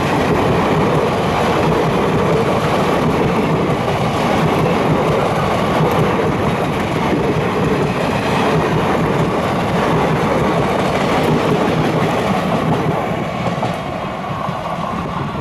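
Express train's passenger coaches passing close by at speed, with a steady rumble of wheels on the track that fades near the end as the last coach pulls away.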